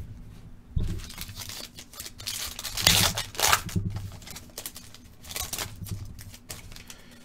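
Foil wrapper of a Panini Phoenix football card pack crinkling and rustling as it is torn open and the cards are slid out, a run of short crackles loudest about three seconds in.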